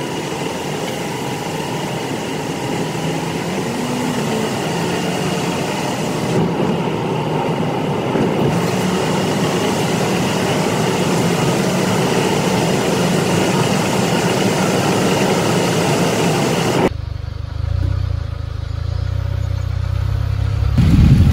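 Steady road and tyre noise of a car driving through a road tunnel, heard from inside the cabin. About seventeen seconds in it cuts off suddenly to a low rumble of wind on the microphone.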